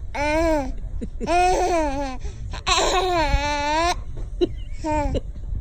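A baby laughing in four high-pitched bouts, its voice wavering up and down; the longest bout lasts about a second.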